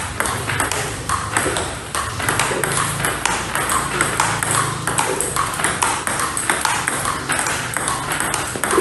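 Table tennis rally: the ball clicks sharply off a paddle faced with Yinhe Mercury III rubber and off the table, about two hits a second, in a steady forehand exchange.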